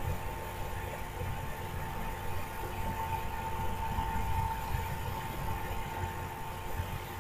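Steady background hum: a low rumble with a thin, constant high-pitched whine over it.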